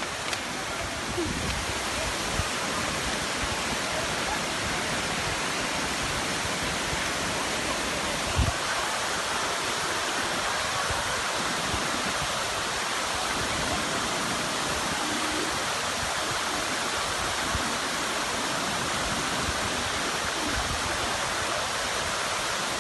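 Waterfall pouring steadily, a constant dense rush of falling water, with a brief low thump about eight seconds in.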